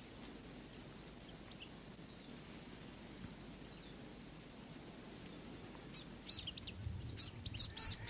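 Fantails calling: faint scattered high chirps at first, then from about six seconds in a quick run of loud, sharp, high-pitched chip notes.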